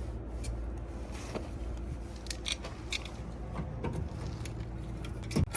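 Scattered light clicks and scrapes of bolts and washers being handled and pushed through a rubber mud flap into its metal bracket, over a steady low hum.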